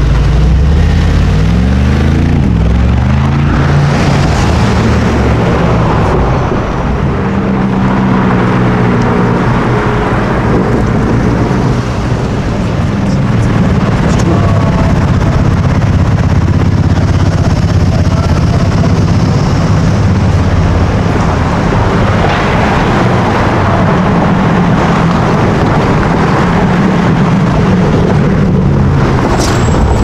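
Loud high-performance car engine sound, the revs rising and falling as the cars pull away and shift.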